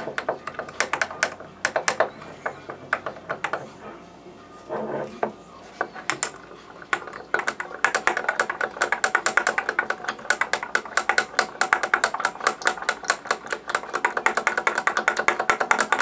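Metal spoon stirring whey protein powder into a drinking glass of water, clinking against the glass. The clinks are scattered at first, then become a quick, steady run over the second half.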